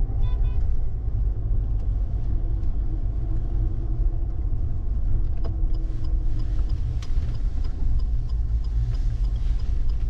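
Car driving along a road: a steady low rumble of engine and tyres. A short run of beeps sounds just after the start, and a faint, even ticking runs through the second half.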